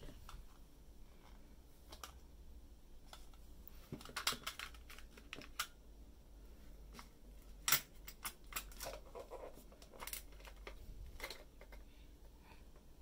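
Scattered clicks and taps of hard plastic and stainless steel as a child's giraffe-handled spoon and fork are handled in their hard plastic case, which is shut. The sharpest click comes a little past halfway.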